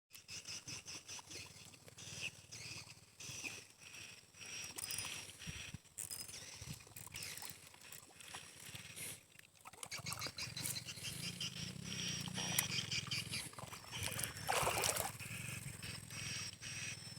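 Faint outdoor ambience of wild animal calls: repeated high chirps and trills, with a louder call about fourteen seconds in, over a low steady hum.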